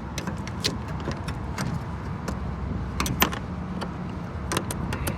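Steady low hum of rooftop HVAC equipment running, with irregular sharp metallic clicks and taps scattered through it, a few louder ones about three seconds in and near the end.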